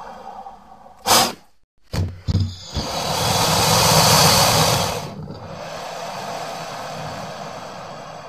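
Spinosaurus creature sound effect. A few short, sharp snorts come first, then a long, loud hissing exhale with a low rumble under it about three seconds in. It trails off into a quieter breathy rumble.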